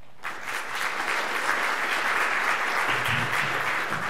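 Audience applauding, starting suddenly about a quarter second in and holding steady.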